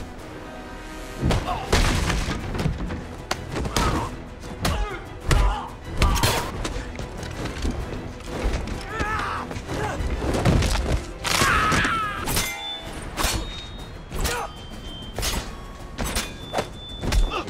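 Film fight-scene soundtrack: dramatic score music under a rapid string of punch and body-hit impacts and thuds, with men's grunts and shouts in the middle of the fight.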